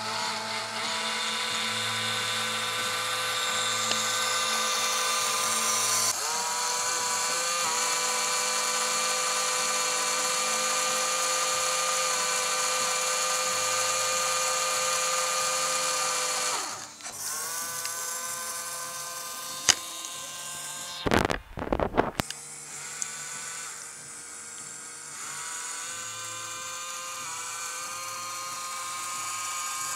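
Two small electric motors (clone Lego L motors) driving a toy boat's paddle wheels, with a steady high-pitched whine. The pitch steps up a few seconds in, dips and recovers about halfway, and a brief clatter of knocks comes about two-thirds of the way through.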